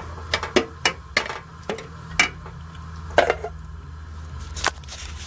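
Sharp knocks and clinks, about ten at uneven intervals, over a steady low hum.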